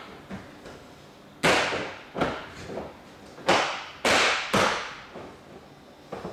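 Interlocking ABS plastic floor tiles being dropped and pressed into place, their clips snapping together: about five sharp, hollow plastic clacks, the loudest about halfway through.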